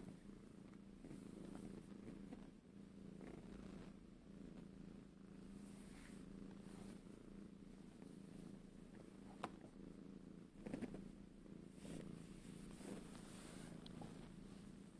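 Tabby-and-white domestic cat purring softly and steadily close to the microphone while being stroked, with a brief click about nine seconds in.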